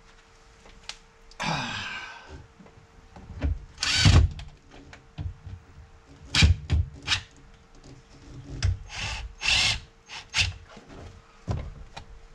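Power drill-driver with a magnetic Phillips bit running in several short bursts, driving screws into a truck door panel's plastic inserts, with knocks from handling the panel between runs. The screws are driven only lightly so the plastic inserts don't strip.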